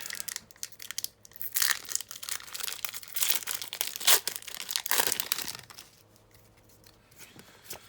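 A foil Pokémon booster pack wrapper being torn open and crinkled for about five seconds, then fainter handling of the pack.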